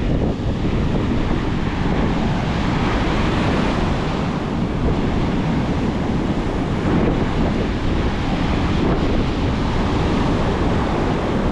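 Rough Atlantic surf breaking and washing steadily, mixed with strong wind buffeting the microphone.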